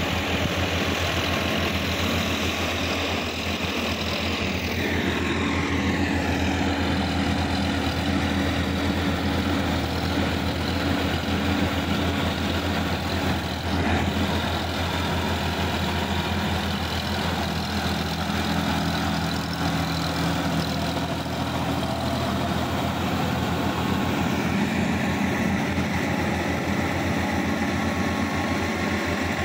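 Diesel tractor engine running steadily with a low hum while the tractor works a wet, muddy paddy field with a rear implement.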